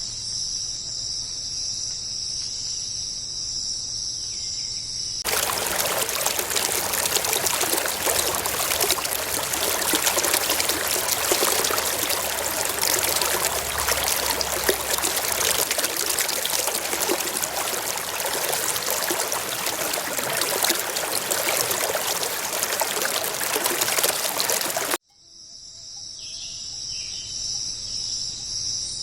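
Steady chorus of rainforest insects, cut off abruptly about five seconds in by loud, steady rushing water. The water stops suddenly near the end and the insect chorus fades back in.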